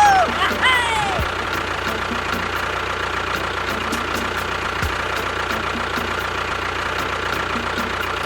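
A few quick swooping whistle-like sound effects in the first second. Then a steady engine sound running at idle with an even ticking beat, unchanged to the end.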